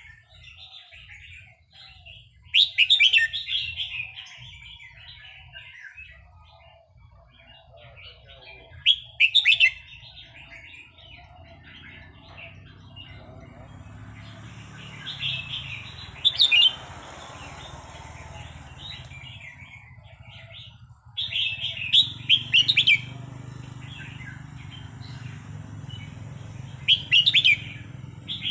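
Red-whiskered bulbul singing: short, loud bursts of bright chirping song, five phrases spaced a few seconds apart.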